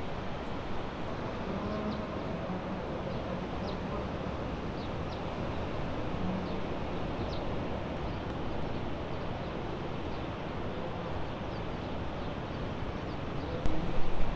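Steady rush of breaking ocean surf and wind, with faint short high chirps here and there. A louder low rumble comes in near the end.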